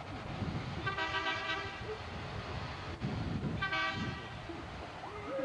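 A vehicle horn sounds twice, two blasts each under a second long and about two and a half seconds apart, over a steady low rumble of engines and traffic. A siren begins to rise at the very end.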